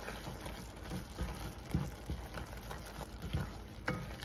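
Chopped onions and mushrooms being stirred in a non-stick pot with a spatula: irregular soft knocks and scrapes of the spatula over a faint sizzle of the vegetables cooking.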